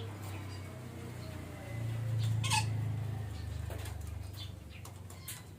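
A parakeet gives a short harsh squawk about two and a half seconds in, with a few fainter chirps, over a low rumble that swells in the middle.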